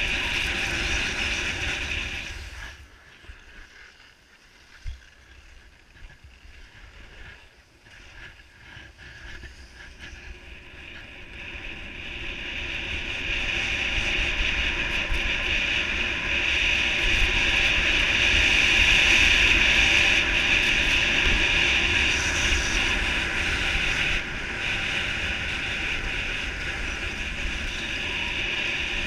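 Wind rushing over the microphone and skis hissing on packed snow during a downhill run. It drops away for several seconds a few seconds in, then builds back up and stays loud.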